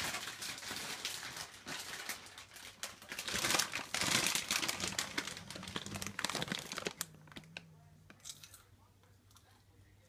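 Plastic food packaging being crinkled and rustled for several seconds, loudest about halfway through, then tapering off: the food sound meant to wake a sleeping bulldog.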